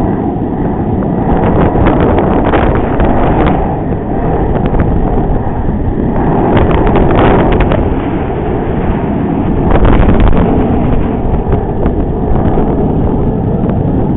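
Wind buffeting the camera's microphone: a loud, continuous low rumble with irregular gusts swelling and easing.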